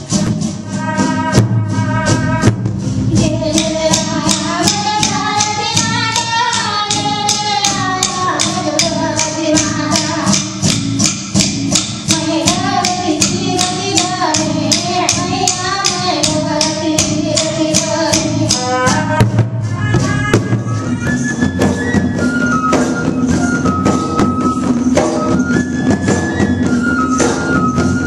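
Indian folk ensemble music: rattles and shakers keep a fast, even beat of about three strokes a second under a gliding melodic line. About two-thirds of the way through, the melody changes to held notes that step up and down in pitch.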